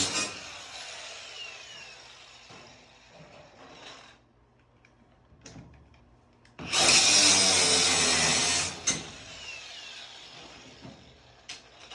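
Handheld power tool running in two bursts. The first cuts off right at the start and winds down over a second or two. After a stretch of small knocks, a second loud run of about two seconds starts about six and a half seconds in and winds down the same way.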